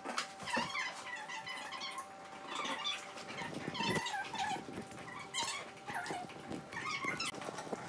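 A small dog, seen as a French bulldog, making repeated short, high-pitched squeaks and whines.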